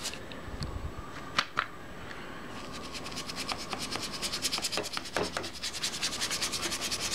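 A paintbrush scrubbing pigment into paper with quick, even back-and-forth strokes, about seven a second, from a couple of seconds in. A few light taps and scrapes come before.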